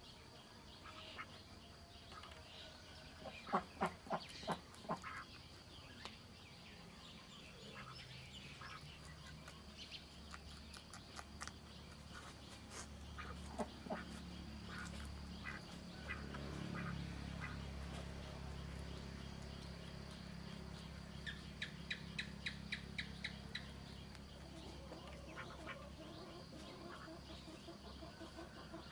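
A rabbit chewing water spinach leaves and stalks with faint crunching clicks, while birds call in the background. There is a cluster of loud calls about four seconds in and a rapid run of about ten short calls about three quarters of the way through. A low hum swells in the middle.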